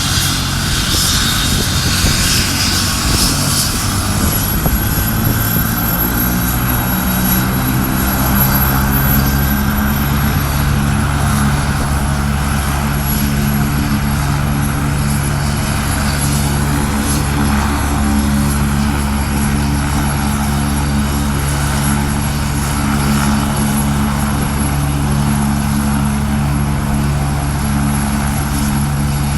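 Air ambulance helicopter running steadily, its rotor and turbine engine giving a constant low drone. A thin, very high turbine whine comes in about four seconds in and holds.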